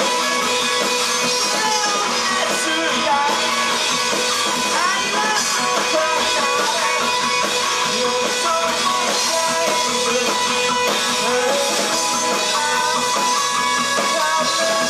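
A rock band plays an instrumental passage live, with guitar to the fore and notes bending in pitch.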